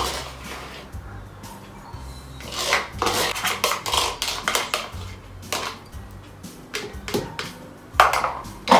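Kitchen utensils knocking, clinking and scraping against dishes and a glass jar: a run of sharp clinks and scrapes, busiest about three seconds in and again near the end.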